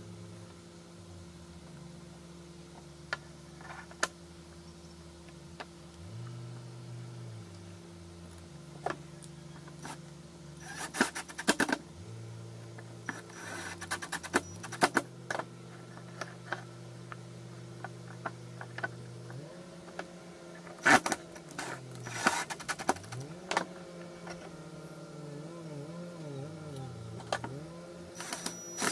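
Cordless drill driving screws through thin metal into plywood, in short whirring bursts of a second or so, about four times, with clicks and knocks of handling between them.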